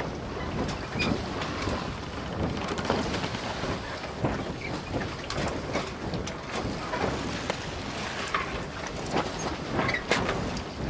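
Wind blowing across the phone's microphone in a steady, uneven rumble, with scattered short knocks and clicks through it.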